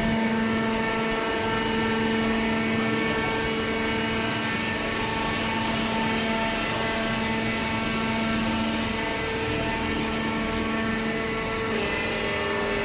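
A motor running with a steady, constant-pitched hum, its tone shifting slightly near the end.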